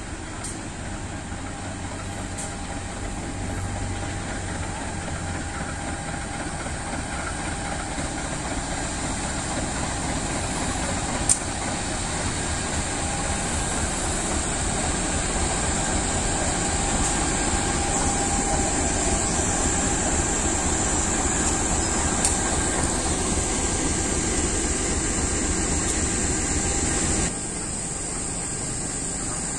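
KAI CC 203 diesel-electric locomotive running steadily at low speed, its engine sound growing louder as it draws close, then dropping suddenly near the end.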